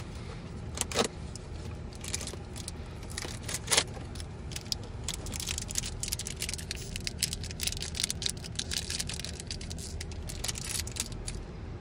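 Crinkling, crackling and clicking of a Disney Doorables toy multi-pack being opened by hand, small plastic figures knocking inside, with a dense run of quick crackles in the middle.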